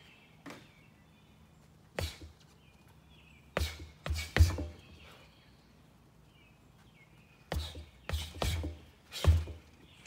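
Boxing gloves punching a stack of car tires: dull thuds thrown in short combinations, one, then three quick ones, then four near the end. Faint bird chirps sound in the pauses.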